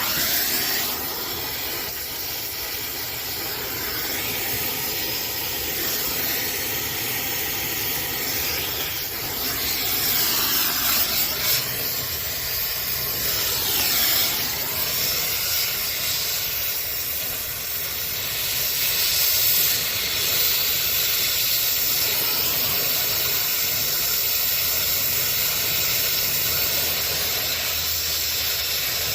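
Brazing torch flame hissing steadily while heating copper refrigerant line joints, its tone sweeping up and down as the flame moves.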